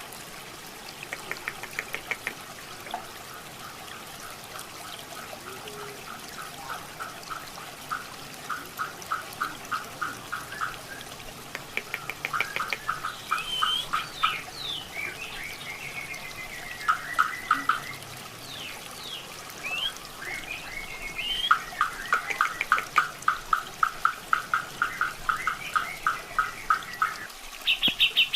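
Grey-cheeked bulbul (cucak jenggot) singing: long runs of repeated clipped notes, about three to four a second, broken by short rising and falling whistles, over the steady trickling of running water.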